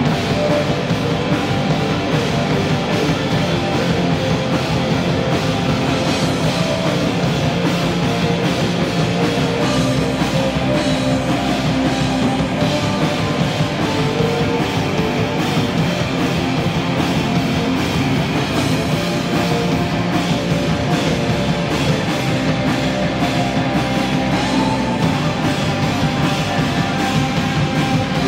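Live rock band playing, with electric guitar, bass guitar and drum kit, loud and unbroken.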